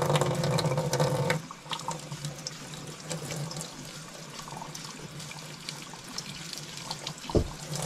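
Kitchen tap running into a stainless steel sink while mushroom pieces are rinsed under it by hand, with small splashes and ticks. A loud steady hum runs through the first second and a half, then cuts off. A single low thump comes near the end.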